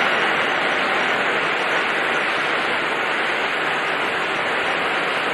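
Loud, steady hiss of background noise in the prayer recording, with no voice: the silent final sitting of the prayer before the closing salutation.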